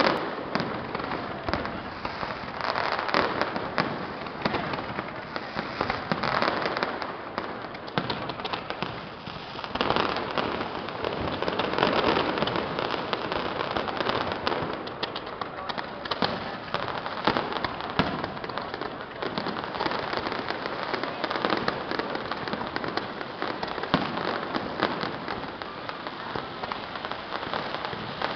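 Aerial fireworks going off: a continuous dense crackle of many quick pops, with a few louder bangs standing out.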